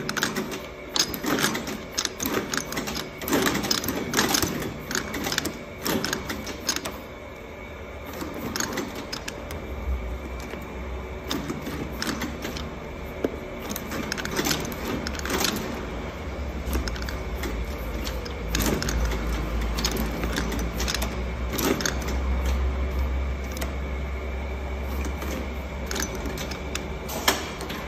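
Shoe outsole stitching machine sewing a rubber lug sole to a boot, with quick, irregular mechanical clacks of its stitching strokes. From about ten seconds in, a steady low motor hum runs under fewer, scattered clacks.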